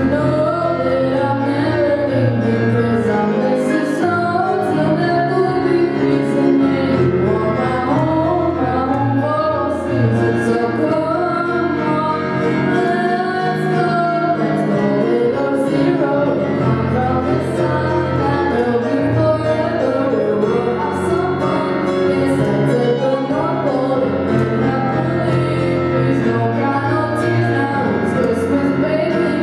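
A female vocalist sings a slow ballad into a handheld microphone, accompanied by chords on a Casio Privia digital piano.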